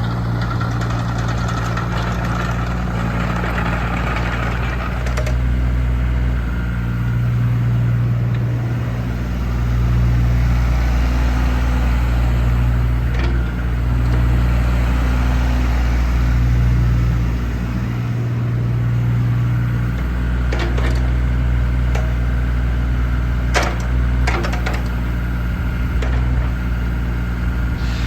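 JCB 8018 mini excavator's diesel engine running, its note swelling and easing several times, with a few sharp knocks in the last third.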